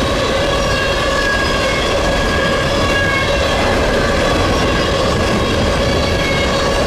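Empty hopper cars of a freight train rolling past at close range: a steady, loud rumble of steel wheels on the rails, with faint steady high-pitched ringing tones above it.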